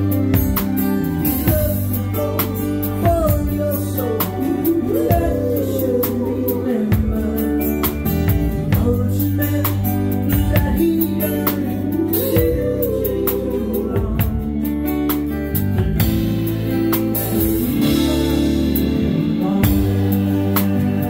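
Live band playing a song: a man singing over strummed acoustic guitar, a low bass line and a drum kit keeping a steady beat.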